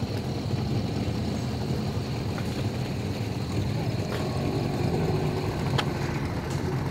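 Boat engine running steadily, a low hum.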